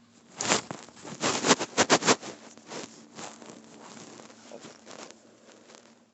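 A quick run of crackly scraping and rustling close to the microphone, densest and loudest in the first two seconds, then thinning to fainter rustles.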